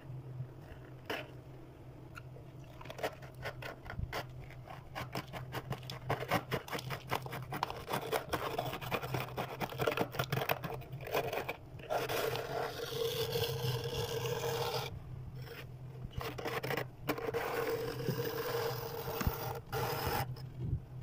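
Thick freezer frost being scraped off with a plastic scraper and with fingers. It starts as rapid short scratchy strokes and moves to longer continuous scrapes with brief pauses between them. A steady low hum runs underneath.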